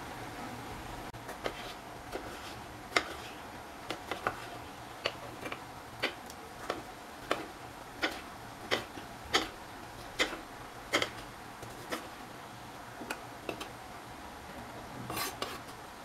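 Chef's knife chopping a tomato on a wooden cutting board: a steady series of short, sharp chops, a little more than one a second, thinning out near the end.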